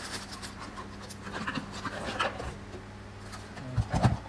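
Plastic wrapping and cardboard packaging rustling and crinkling as power-tool boxes are unpacked by hand, with a low steady hum underneath. A dull thump comes about four seconds in.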